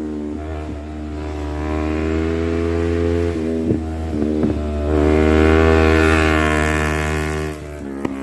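Yamaha R25 parallel-twin engine pulling under throttle, its pitch climbing slowly. There are short breaks in the note about three and a half and four and a half seconds in, then it climbs again and drops off sharply near the end as the throttle closes.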